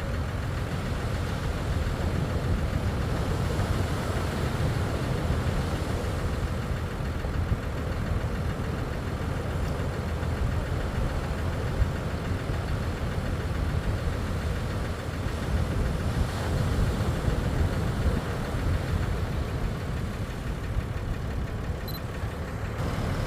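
Engine of the beach launch vehicle running steadily with a low rumble as it edges a boat toward the water's edge for launching.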